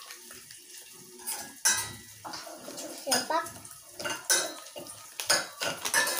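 Crinkling and rattling of a foil pouch of instant-coffee sachets as sachets are pulled out and handled, with sharp clinks and knocks at irregular intervals.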